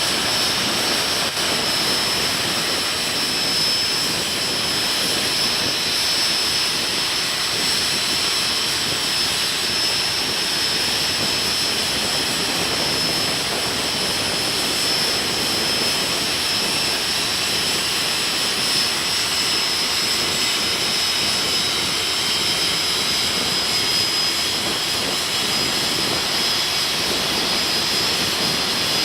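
Jet engine running at a steady pitch: a constant rushing roar with a high turbine whine held level throughout, without spooling up or down.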